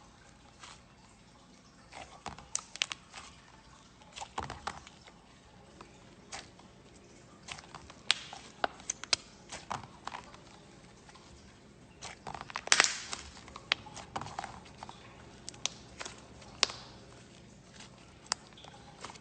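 Fidget toys being handled: irregular sharp clicks, taps and crinkling. The loudest cluster comes about two thirds of the way through.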